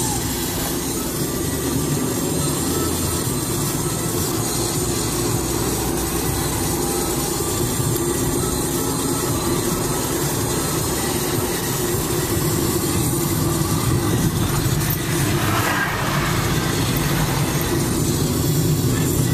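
Car engine and road noise heard from inside the cabin while driving, steady throughout, with a brief swell about three-quarters of the way through.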